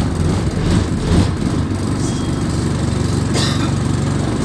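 Alexander Dennis Enviro200 bus's diesel engine idling with a steady, pulsing low note, heard from on board: the rough idle this bus is known for. A brief hiss comes about three seconds in.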